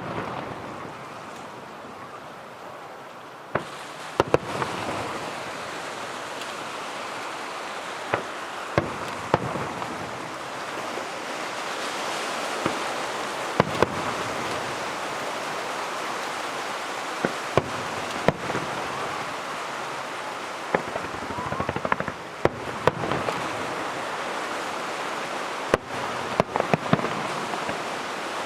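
Aerial firework shells bursting: sharp bangs, some single and some in quick clusters, over a continuous hiss that swells after a big burst about three and a half seconds in.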